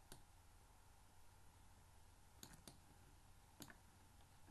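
Near silence with four faint computer mouse clicks, two of them close together about two and a half seconds in.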